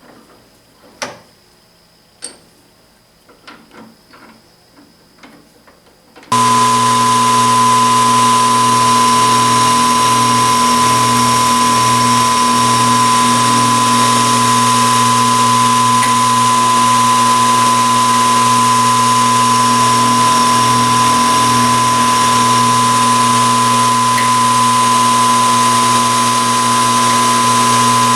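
A few light clicks and knocks, like metal parts being handled. About six seconds in, a power machine tool's motor starts abruptly and runs steadily with a constant tone.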